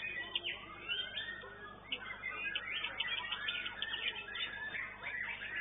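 White-rumped shama (murai batu) singing: a rapid, varied run of chirps and whistles with no pauses.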